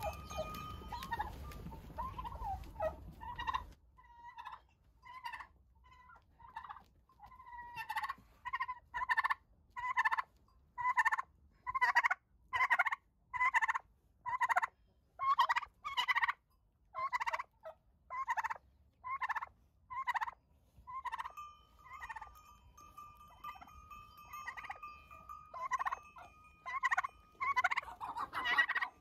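Domestic tom turkeys calling in a long run of short repeated notes, about two a second, with higher, more drawn-out notes near the end.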